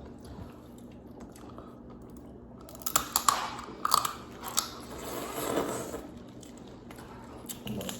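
A person chewing and eating close to the microphone, with a cluster of short crunching, smacking bites a few seconds in and a few more near the end.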